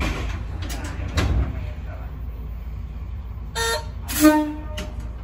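Diesel railcar's horn sounding twice, heard from inside the cab: a short toot, then a longer, louder one. Under it runs the low rumble of the railcar under way, with a few knocks early on.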